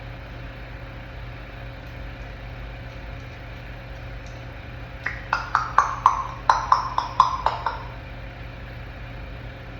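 African grey parrot making a quick run of about a dozen sharp clicks, each with a short pitched note, over about three seconds starting halfway in. A steady low hum runs underneath.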